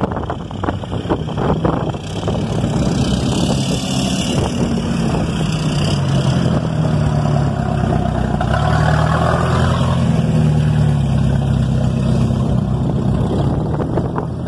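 Off-road jeep engine running steadily as it drives slowly past close by, a continuous low drone. There are a few sharp clicks or knocks in the first couple of seconds.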